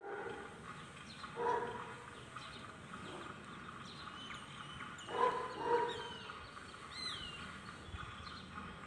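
A dog barking three times: one bark about a second and a half in, then two barks close together around five seconds in. Small birds chirp and whistle faintly in between.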